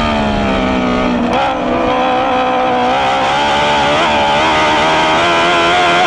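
Dwarf car's motorcycle-derived engine heard from onboard at racing speed, over wind and dirt-track noise. Its revs drop over the first second or so, hold roughly steady, then begin climbing again near the end as it pulls.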